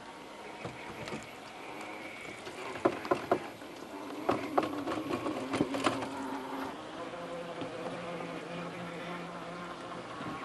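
Traxxas TRX-4 RC rock crawler's electric motor and geared drivetrain whining at low crawl speed, the pitch shifting as it works. Several sharp knocks come about three seconds in and again between about four and six seconds in.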